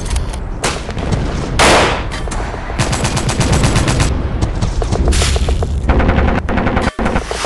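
Battle sound effects of gunfire: rapid machine-gun bursts of about ten rounds a second, mixed with single sharp rifle shots, over a low rumble.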